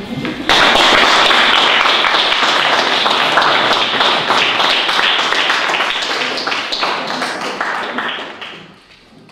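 Audience applauding: many hands clapping, starting suddenly about half a second in and dying away near the end.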